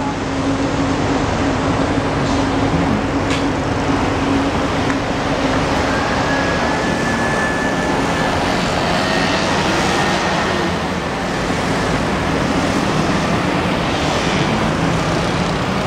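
Busy city street traffic: a steady wash of engine and tyre noise from passing motor scooters, cars and buses, with a low engine hum strongest in the first few seconds.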